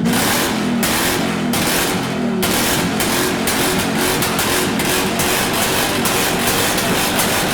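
A modified Mini's engine held at high revs close by, with a rapid, irregular crackle from the exhaust.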